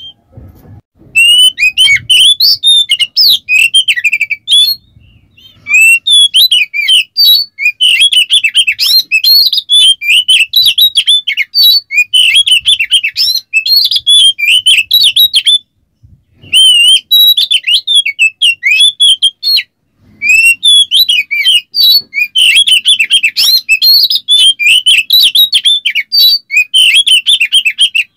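Oriental magpie-robin (kacer) singing a loud, fast and varied song of rapid gliding whistles and chattering notes, in long runs broken by a few short pauses.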